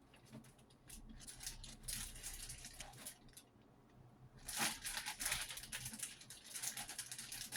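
Soft, irregular rustling and scraping handling noises with small clicks, busier from about four and a half seconds in.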